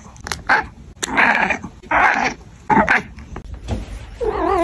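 Domestic cat vocalizing: a few short breathy calls without a clear pitch, then near the end a long wavering meow that rises in pitch.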